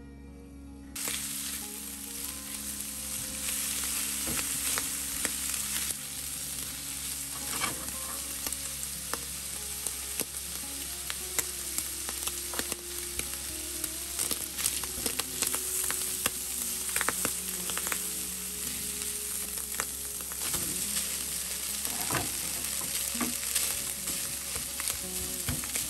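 Mixed seafood (shrimp, squid and scallops) sizzling in oil in a nonstick frying pan, starting about a second in, with a spatula stirring and clicking against the pan.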